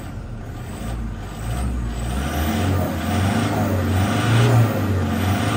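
Toyota Vigo Champ's 2.5-litre VN-turbo diesel engine being revved: it rises in pitch and gets louder from about two seconds in, then holds at the higher speed.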